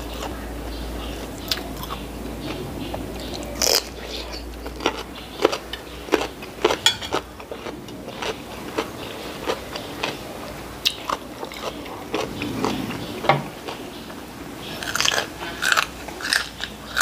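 Close-up eating sounds: crisp, irregular crunching and chewing of raw cucumber and fresh vegetables.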